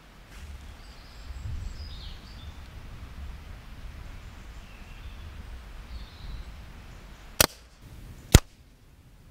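Pre-charged pneumatic air rifle (Brocock Concept Lite) firing: two sharp cracks about a second apart, the second the louder, after a low steady rumble.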